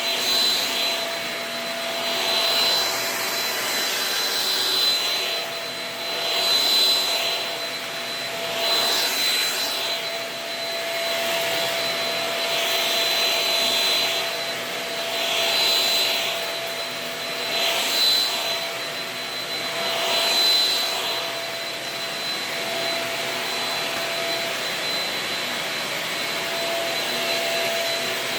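Shark Rocket corded stick vacuum running with a steady high whine. Its rushing sound swells and fades about every two seconds as it is worked back and forth.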